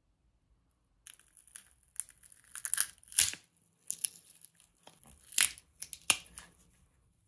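Screwdriver prying apart a 3D-printed ABS clutch, its burnt plywood friction plate scraping and cracking away from the plastic plate. A run of sharp scrapes and cracks starts about a second in, the loudest about three seconds in and twice more between five and six seconds in.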